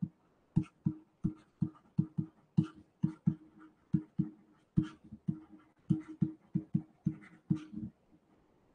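Stylus writing on a pen tablet: a quick run of short tapping knocks, about three a second, as the strokes of handwriting go down, stopping near the end.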